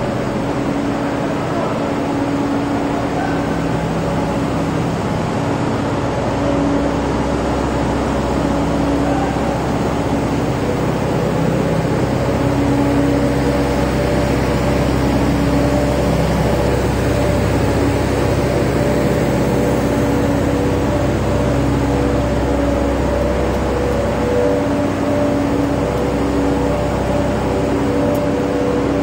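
Steady drone of running machinery, with humming tones that come and go over a constant noise.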